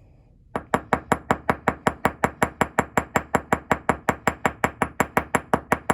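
Small riveting hammer gently tapping the end of a rivet, a fast, even run of light metallic taps, about five a second, beginning about half a second in. The taps spread the rivet's end just enough to hold it in the piece before final setting.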